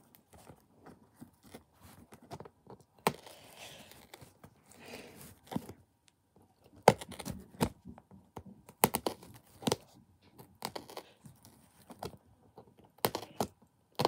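Packing tape and cardboard of a shipping box being picked at and pulled open by hand: scattered sharp snaps and crackles with short tearing rustles, busier in the second half.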